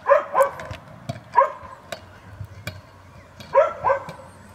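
A dog barking: five short barks, two quick pairs with one bark between, with a few sharp clicks in the gaps.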